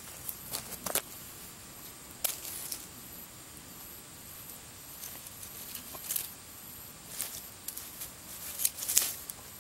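Scattered sharp crackles and light clicks from a small, dying campfire, while a sweet potato is set in the hot ash and prodded into the embers with a knife. The clicks come a few at a time, the loudest cluster near the end, over a steady faint high hiss.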